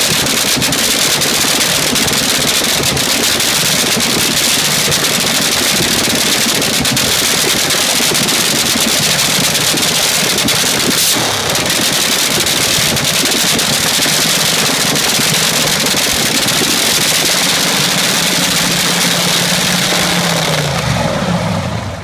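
Supercharged nitromethane-fuelled AA/FD dragster engine cackling at idle, loud and steady. Near the end its pitch drops as it winds down and shuts off.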